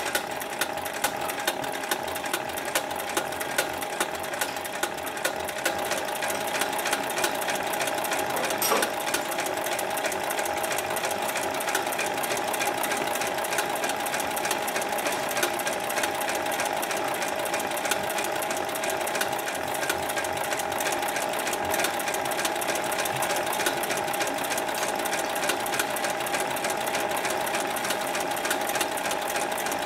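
Hightex 9204ZZ heavy-duty straight-stitch and zigzag sewing machine stitching rope onto netting: a rapid, even needle-and-feed clatter over a steady motor hum. It starts right at the beginning, builds a little over the first few seconds, then runs steadily without a break.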